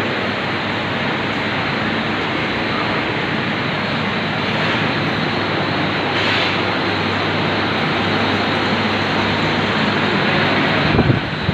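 Air compressor running: a loud, steady mechanical noise with a low hum. It breaks into a few low thumps near the end.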